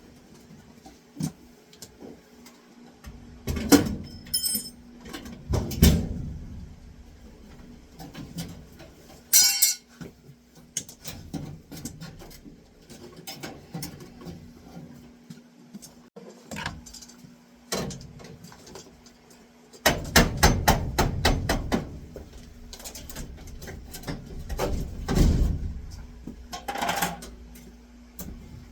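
Sheet-metal furnace and ductwork parts being handled and pulled apart: irregular metal clanks, knocks and rattles, some ringing briefly, with a quick run of clicks about two-thirds of the way through. A faint steady hum runs underneath.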